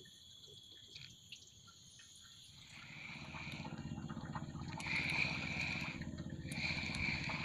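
Small boat engine running, coming in about three seconds in and growing louder, with a steady high whine over a low rattle.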